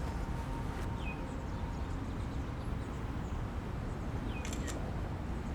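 Steady low background ambience with a few short high bird chirps, and two sharp camera shutter clicks about four and a half seconds in as a photo is taken.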